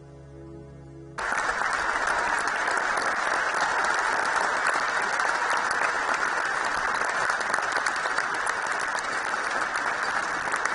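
A held low chord of music for about a second, then, after a sudden cut, dense steady applause from a large theatre audience.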